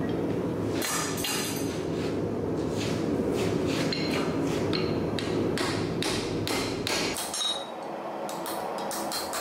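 Hand hammer striking hot leaf-spring steel on an anvil, a steady run of blows about two to three a second, each with a short metallic ring. Under the blows runs a steady low rumble that drops away about seven seconds in.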